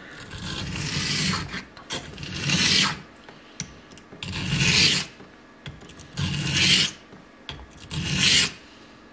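Straight razor blade being stroked across a coarse whetstone, the first low-grit stone of the sharpening progression. Five gritty scraping strokes, each about a second long, with short pauses between them.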